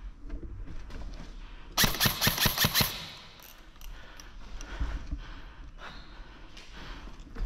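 An airsoft rifle firing one rapid full-auto burst of about eight shots in about a second, a couple of seconds in.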